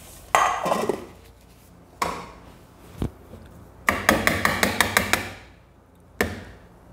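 Kitchen utensils knocking: an aluminium ring cake pan knocked a few times and set down on a stone counter, then a wire whisk clattering in a mixing bowl in a quick run of about ten clicks and tapped against the rim near the end.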